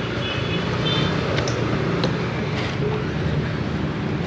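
Petrol being pumped from a station dispenser into a scooter's fuel tank: a steady hiss over a low hum, with a few faint high tones about a second in.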